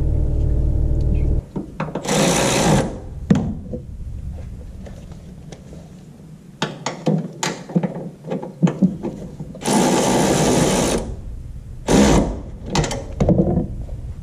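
Air tool running in three short bursts as the coilover mounting bolts are run in, with metal clicks and clanks of tools and parts in between. A steady low hum cuts off about a second and a half in.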